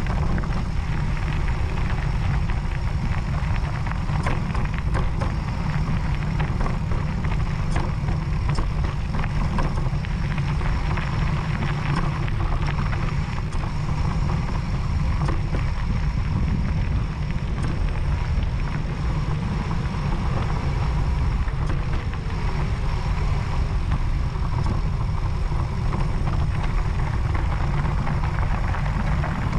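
Steady wind rumble on the camera microphone and tyre noise over loose gravel from an electric mountain bike riding a rough track, with small clicks and rattles throughout.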